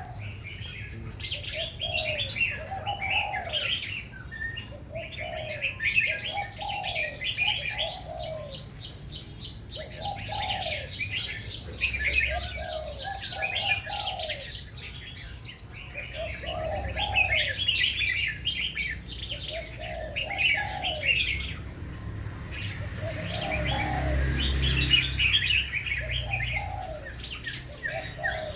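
Several birds singing together: busy high chirping and warbling, a long fast trill from about six seconds in to about fourteen, and beneath it a lower two-note call repeated every second or two.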